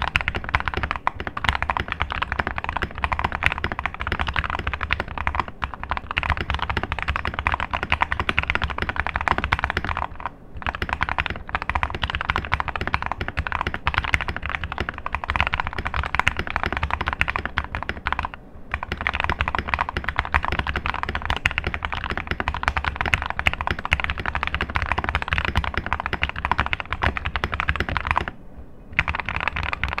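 Fast typing on a Digital Alliance Meca Fighter mechanical keyboard with Gateron Yellow KS-3 linear switches, tape-modded with foam in the case and lubed stabilizers: a dense, even run of keystrokes and spacebar presses. The typing breaks off in three brief pauses.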